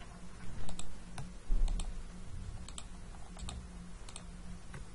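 Scattered sharp clicks of a computer mouse and keyboard, about a dozen spread unevenly. Two dull low thumps in the first two seconds are louder than the clicks. A steady low electrical hum runs underneath.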